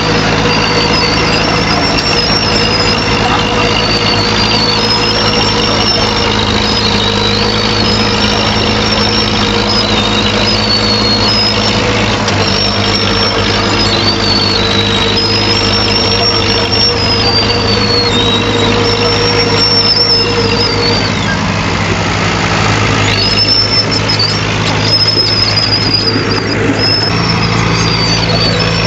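Heavy diesel earthmoving machine running steadily, under a high squeal that rises and falls over and over and breaks off briefly a little past twenty seconds in.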